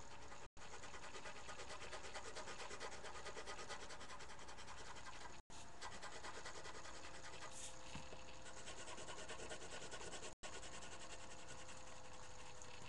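Coloured pencil scratching steadily across paper in quick back-and-forth shading strokes. The sound cuts out briefly three times.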